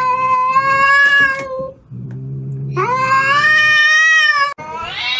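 Cat in a standoff with another cat, growling low and then yowling: two long drawn-out howls with a growl between them. The clip cuts off abruptly near the end.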